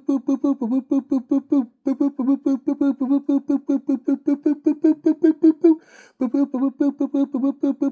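A man's voice rapidly chanting the nonsense syllable "putty" over and over on one steady pitch, about six or seven syllables a second. It breaks off briefly near two seconds and again near six seconds, where he takes a breath.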